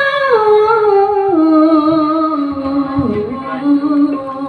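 A high solo voice singing one long held, wordless vowel line that steps slowly down in pitch through several notes, with a brief dip and rise about three seconds in. It is a melisma in a slow Javanese song.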